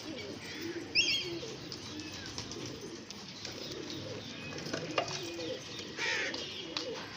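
Domestic pigeons cooing, with two sharp high chirps, one about a second in and one near six seconds, and a single click near five seconds.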